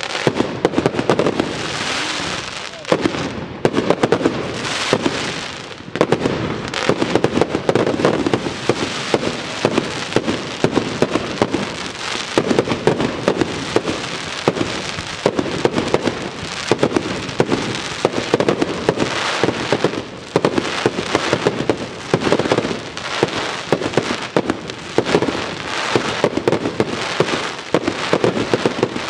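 Aerial fireworks display: a dense, continuous barrage of shell bursts, with loud bangs running into crackling stars.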